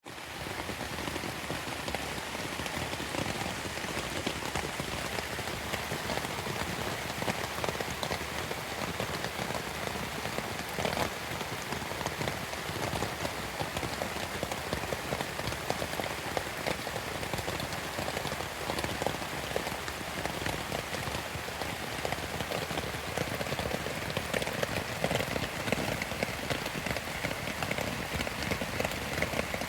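Heavy rain falling steadily on a tent, a dense hiss of countless drop strikes that grows a little louder near the end.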